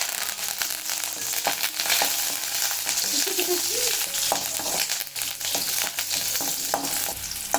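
Shallots frying with mustard seeds in hot coconut oil for a rasam tempering: a steady sizzle, with scattered clicks of a utensil stirring in the pan.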